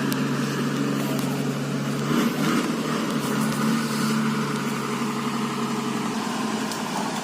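Truck engine running with a steady drone, its note shifting about two seconds in and dropping away near six seconds.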